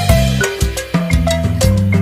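Background music with a steady beat: short struck melody notes over a bass line and percussion.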